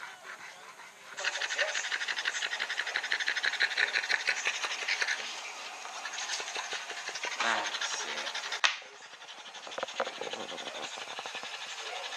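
Boston terrier panting fast and hard, worn out after exercise. The panting is loudest in the first few seconds and softer in the second half.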